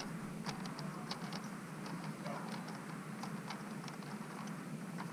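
Small, faint clicks and ticks of a screwdriver tightening a wire into the screw terminal block of a gate opener control board, with wires being handled, over a steady low hum.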